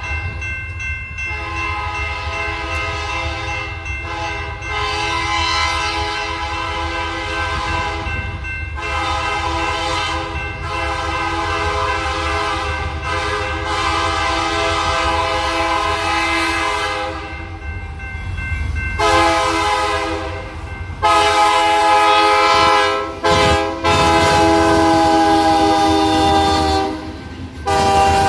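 Canadian Pacific diesel locomotive's air horn blowing a run of long blasts with short breaks, sounding for a grade crossing, over the low rumble of the approaching freight train. The blasts get louder from about two-thirds of the way in as the locomotive nears the crossing.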